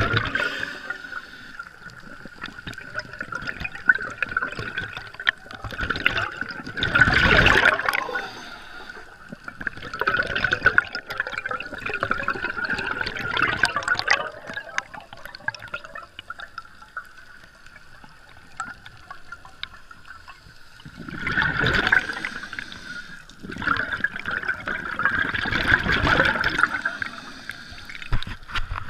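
Scuba diver's exhaled air bubbling out of the regulator, heard underwater: gushing bubble bursts, a long one about seven seconds in and two more near the end, over a thin steady tone.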